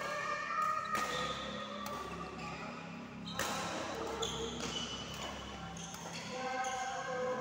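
Badminton rackets smacking a shuttlecock during a rally: a sharp hit about a second in and another a couple of seconds later.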